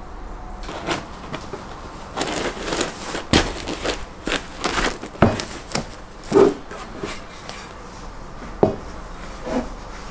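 Crusty homemade grain bread rolls handled in a cloth-lined basket, then a linen cloth rustling as it is pulled over and tucked around them: irregular crackles, rustles and soft knocks, busiest in the middle.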